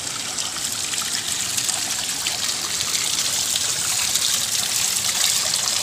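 Water from a small spring pouring off a rock lip and splashing onto stones: a steady trickle that grows slightly louder.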